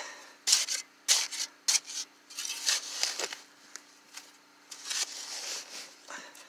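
Steel shovel blade digging into grassy soil: a series of scraping, crunching strokes as dirt and grass roots are cut and levered out of the hole.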